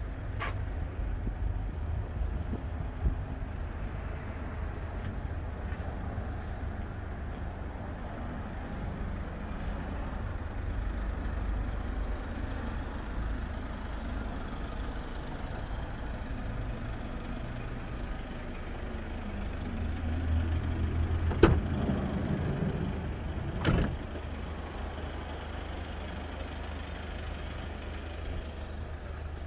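Steady low rumble, then the van's sliding side door being opened: a sharp click about two-thirds of the way in, a short rolling rumble, and a clunk about two seconds later as the door reaches its open stop.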